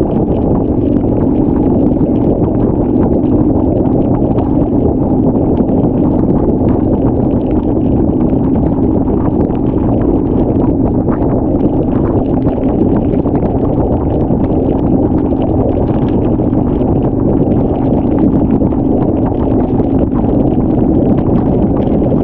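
Triumph Scrambler 900 parallel-twin engine running steadily at highway cruise, with wind rushing past the microphone and tyres hissing on the wet road.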